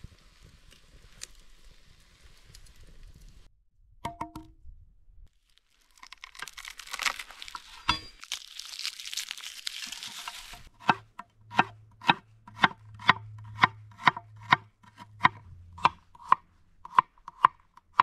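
A crinkly tearing and rustling sound for a few seconds, then a knife chopping on a cutting board in a steady rhythm, about two cuts a second.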